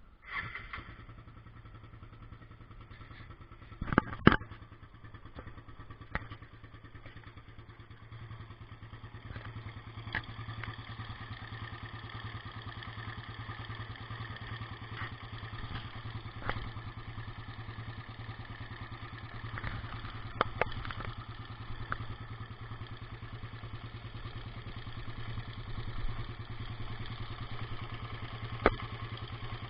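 Suzuki Satria FU 150's single-cylinder four-stroke engine running steadily with a busy mechanical rattle, which the uploader puts down to a noisy cam chain. A few sharp knocks stand out, the loudest about four seconds in.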